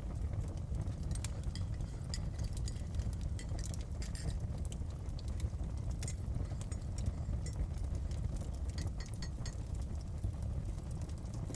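Layered kitchen-and-fireside ambience: a steady low rumble under irregular sharp crackles and small clinks.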